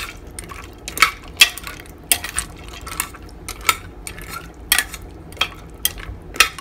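Metal spoon stirring pasta, chicken and broth in a slow-cooker crock, clinking and scraping against the crock about nine times at an irregular pace, with a soft wet stirring sound between the clinks.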